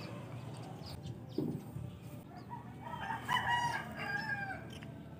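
A rooster crowing, with the clearest call about three seconds in.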